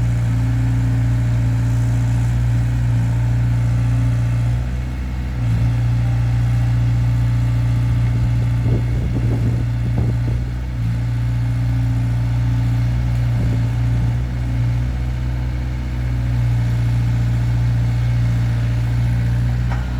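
Caterpillar E70B excavator's diesel engine running steadily at part throttle while the machine is worked, its level dipping briefly a few times.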